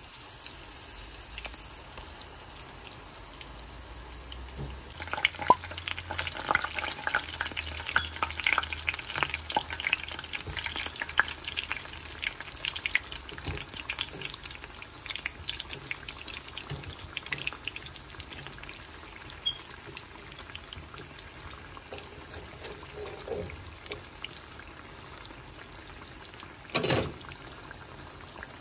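Battered food shallow-frying in a pan of hot oil: a steady sizzle full of crackles, which comes thicker and louder for several seconds in the first half. A short thump near the end.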